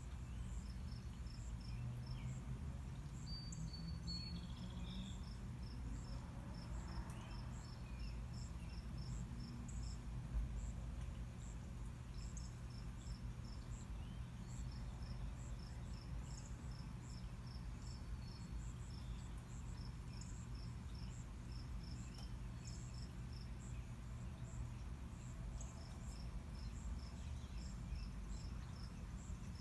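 Crickets chirping in steady trains of short, high, evenly spaced pulses, over a constant low rumble.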